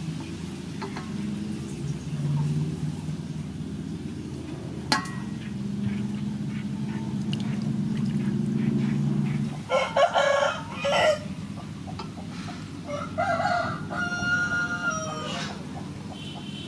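A rooster calling: loud short squawks about two-thirds of the way through, then a crow near the end. A steady low hum runs underneath.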